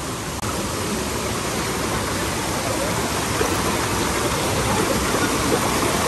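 Rushing water of a shallow rocky stream pouring over rocks in small white-water cascades: a steady, close rush.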